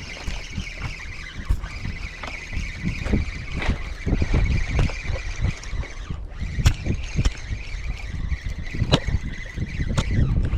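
A steady, slightly wavering high-pitched whine over uneven low rumble, typical of wind buffeting the microphone, with scattered short clicks.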